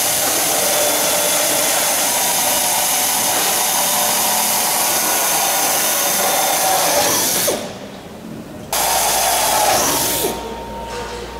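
Handheld air drill running as it drills into the edge of a riveted aircraft panel: one long run of about seven seconds, a short pause, then a second, shorter run.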